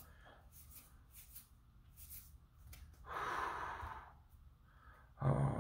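A man's long breathy exhale, a sigh lasting about a second, about three seconds in, with faint soft clicks of trading cards being handled before it. A short voiced sound comes near the end.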